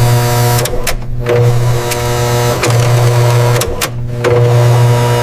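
Electric motor of a paper tensile tester whirring in repeated pulses of about a second each as its grips pull a paper strip, with short clicks in the breaks between pulses.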